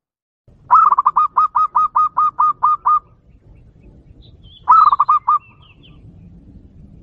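Zebra dove (perkutut) lure call, clear and sharp: a fast run of about a dozen cooing notes, about five a second, then after a pause a shorter run of about six. It is the pikat call used to draw in male zebra doves. Faint chirps of other small birds sound between the runs.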